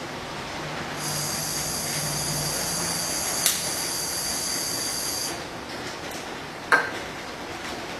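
Argon gas hissing steadily from a pressurised wine-preservation spray can for about four seconds, with a click partway through. A sharp knock follows near the end.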